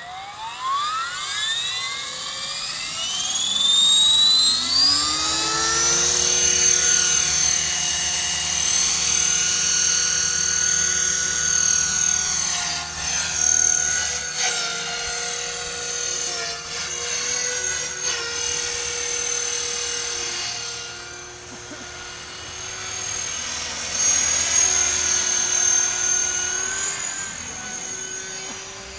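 Align T-REX 500 electric RC helicopter spooling up: a whine that rises steadily in pitch over the first six seconds, then holds as a loud, steady high whine with small shifts in speed. The helicopter is being run to show an abnormal noise it has developed.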